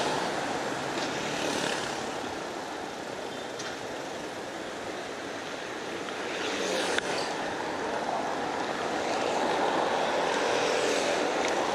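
City street traffic: cars passing, one going by louder over the last few seconds, with a sharp click about seven seconds in.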